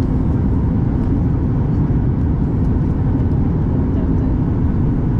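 Steady cabin noise inside a Boeing 737 MAX 8200 on approach: the even rumble of its CFM LEAP-1B engines and airflow over the fuselage, with a faint steady hum.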